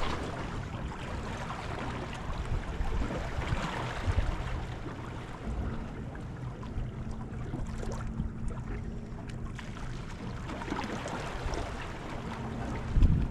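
Wind buffeting the microphone over water washing at the inlet, in uneven surges. A steady low hum joins about five seconds in.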